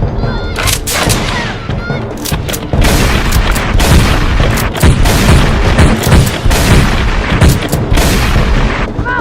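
Rapid gunfire sound effects: many sharp shots in quick succession, mixed dense and loud.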